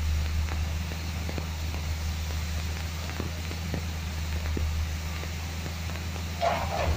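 Heavy machinery engine running steadily as a truck-mounted hydraulic grapple crane swings a scrapped car body, with scattered light metallic clicks and a brief louder scrape near the end.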